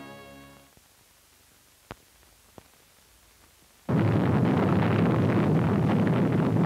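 Missile launch: a rocket engine's roar starts suddenly about four seconds in and holds steady and loud, with a crackle through it. Before that, the tail of a music sting fades into near silence broken by two faint clicks.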